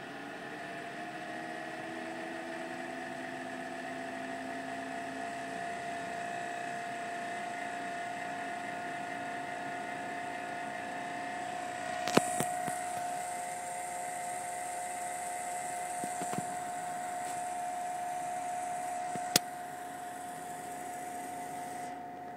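ATI Radeon HD 5870 graphics card making a steady whining tone over its cooling fan's hiss, the unexplained noise its owner is asking about. The whine rises slightly as it comes in and then holds steady; two sharp clicks cut in, about 12 and 19 seconds in.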